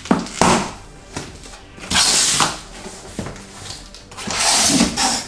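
Large cardboard shipping box being pulled open by hand: taped flaps tearing and scraping free, with a few knocks of cardboard against cardboard, and two longer rasping tears, one about two seconds in and one near the end.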